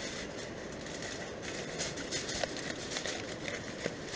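Aluminium foil crinkling and rustling as hands open up a foil cooking packet, with a couple of sharper crackles in the second half.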